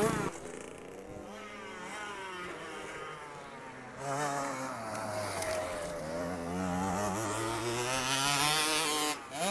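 Small motocross bike engine revving up and down as the rider works the throttle through ruts. It is louder near the end as a bike passes closer.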